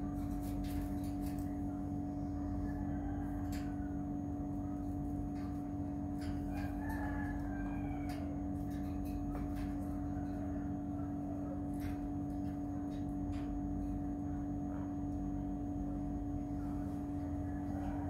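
A steady low mechanical hum, with a rooster crowing faintly in the distance about seven seconds in, and a few faint clicks.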